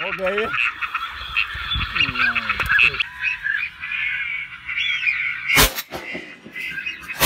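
A flock of ducks quacking and calling in a constant chatter, with a single loud shotgun shot about five and a half seconds in and another at the very end.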